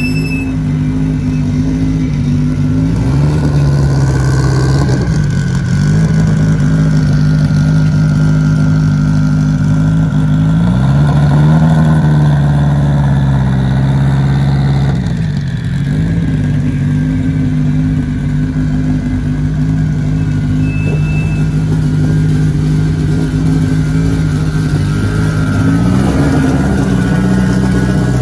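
A vehicle engine running steadily, its pitch holding for several seconds at a time and then sliding up or down to a new speed about four times.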